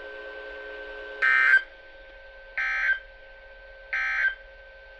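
Three short bursts of the weather radio's digital SAME data tones, the end-of-message code that closes the weekly test, each about a third of a second long and spaced about 1.4 seconds apart. A faint steady tone and hum from the receiver runs underneath.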